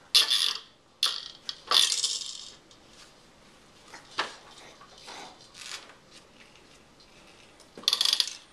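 Plastic toys on a baby's activity center rattling and clattering as a baby grabs and spins them, including the roller drum on its tray. Three loud bursts in the first couple of seconds, a few faint clicks, then another burst near the end.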